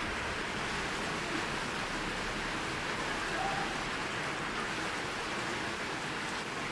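Hard, steady rain falling on a tin roof, a loud, even hiss that does not let up.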